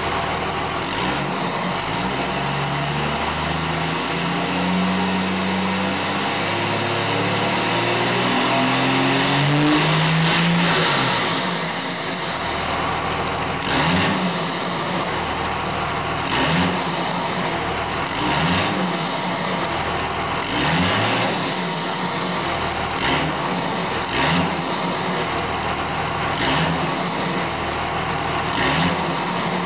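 2001 Dodge Ram's Cummins 5.9 L inline-six turbo diesel revved up and held for several seconds, then blipped about every two seconds, each blip followed by a high turbo whistle falling in pitch as the stock turbo spools down. The whistle is loud because the turbo's silencer ring has been removed.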